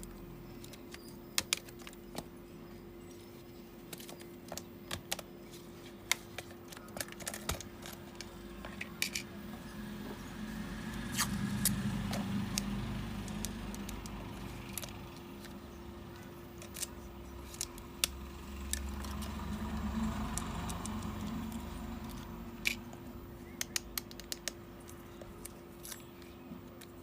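Small repair tools and phone parts clicking and ticking against each other in quick, irregular taps, over a steady low hum. Twice a louder swell of rushing noise rises and fades.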